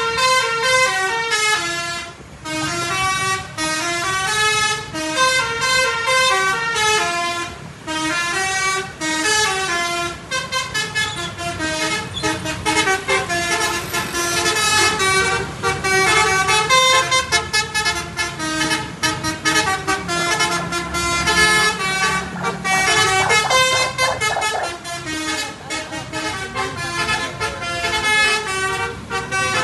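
Bus basuri horns, the Indonesian multi-note "telolet" horns, playing a fast running melody of stepping notes over a low hum of engines and traffic, with brief breaks about two and eight seconds in.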